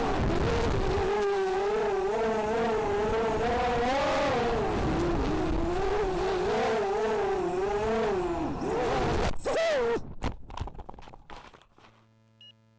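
Brushless motors and 5-inch props of a 250-size racing quadcopter (Cobra 2206 2100 kV), heard from its onboard camera. The whine wavers up and down in pitch with throttle changes. About nine seconds in, it surges briefly and cuts off, and a few knocks and scrapes follow as the quad crashes and tumbles into the grass, then fade to near quiet.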